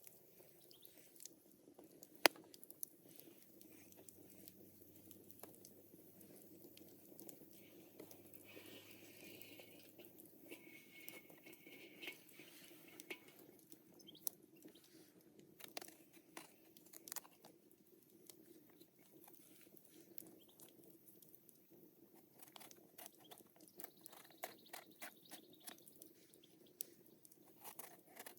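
Faint food-preparation handling noises: scattered soft clicks and small crunches over a low steady hum, with one sharper knock about two seconds in and a quick run of clicks near the end.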